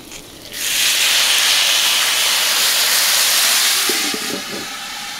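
Water poured onto a hot steel Skottle griddle, hissing loudly into steam as it hits the metal. The hiss holds for about three and a half seconds, then eases as a stainless steel dome lid is set over the potatoes to steam them.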